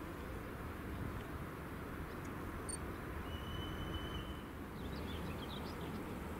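Regional electric multiple unit at the platform, a low steady rumble as it stands and starts to pull away. A single steady high tone sounds for about a second near the middle, and small birds chirp briefly.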